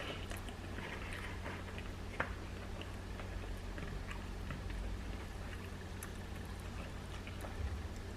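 A person chewing a fried chicken sandwich, with small mouth clicks over a steady low hum.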